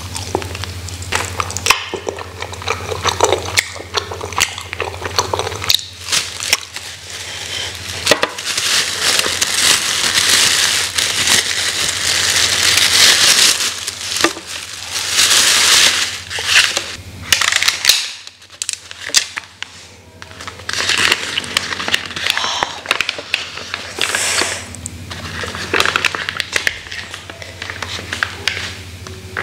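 Close-miked handling sounds: a black plastic carry bag and a small tied plastic sauce bag crinkling and rustling as they are opened. Near the end the brown paper wrapping of a rice parcel rustles as it is unfolded. A steady low hum runs underneath.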